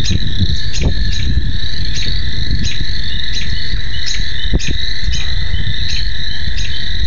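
Evening chorus of calling frogs or insects: a steady high trill with short chirps repeating about twice a second, over a loud, uneven low rumble on the microphone.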